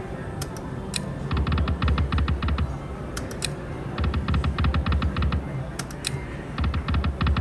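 Video slot machine spinning its reels: a fast, even clicking, about eight ticks a second over a low thump, in bursts of about a second and a half, three times. A few single sharp clicks come between the spins.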